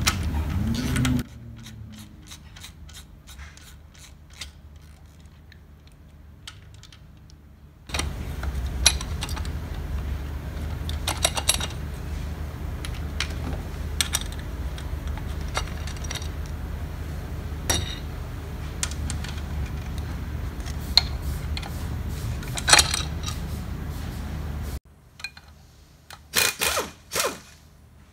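Metal clicks, clinks and scrapes of hand tools and bolts on a BMW HP4 race engine's cylinder head as it is unbolted. A steady low hum runs underneath through the middle, and several louder clinks come near the end.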